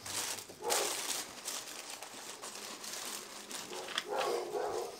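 Paper taco wrappers crinkling and rustling as hard-shell tacos are handled over them, loudest about a second in.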